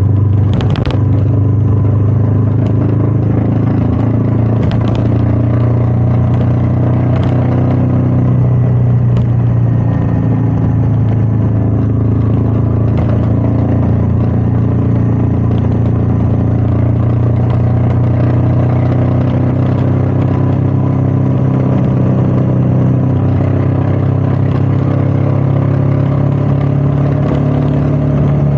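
Royal Enfield Meteor 350's single-cylinder engine running steadily under way, with wind rush. A few short knocks come through, the clearest about a second in, and the engine note rises a little near the end.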